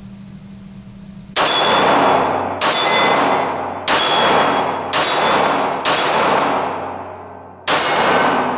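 Six shots from a SIG P230 .380 ACP pistol, about a second apart with a longer pause before the last, each with the ring of struck steel targets and a long echo off the concrete range.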